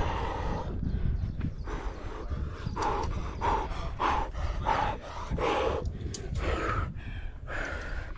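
A rock climber breathing hard under effort: short, heavy breaths in quick succession, about two a second, over a low rumble.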